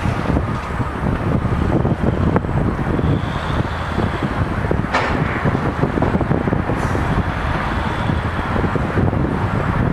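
Lattice-boom crane's engine running under load as it hoists a closed clamshell bucket, mixed with wind buffeting the microphone. A single sharp clank about five seconds in.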